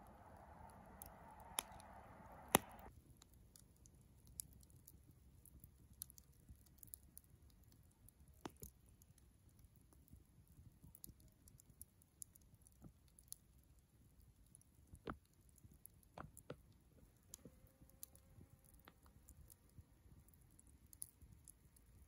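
Wood fire crackling quietly, with irregular sharp pops and snaps from the burning logs, the loudest about two and a half seconds in. A soft rushing noise in the first three seconds cuts off suddenly.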